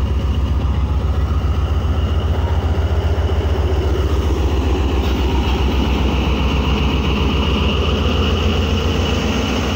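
ZCU-30 diesel-electric locomotive's engine running loud and steady with a fast low pulsing as it pulls a passenger train out from the platform.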